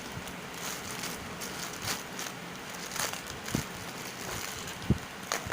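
Handling noise: soft rustling and crinkling with a few light knocks, the loudest a dull thump near the end.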